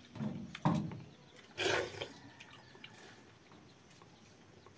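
Close-up eating noises of a man eating rice and chicken curry by hand: three short, loud mouth sounds in the first two seconds, then only faint background.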